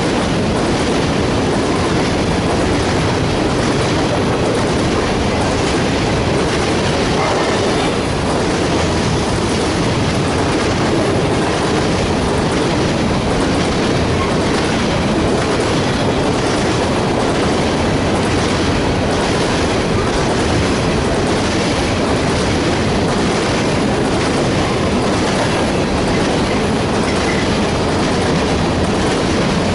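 A freight train of hopper cars rolling past close by: steady wheel and rail noise with a repeating clickety-clack of wheels over the rail joints.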